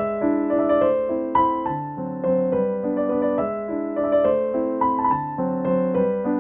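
Background piano music: a gentle melody of held notes played over one another.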